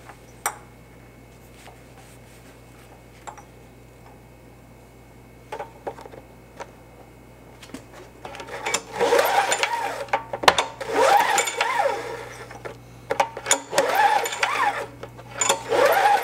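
Spark plug being screwed by hand back into the cylinder head of a Briggs & Stratton 6 hp engine: a few faint clicks at first, then from about halfway on a long run of squeaking and scraping metal from the threads.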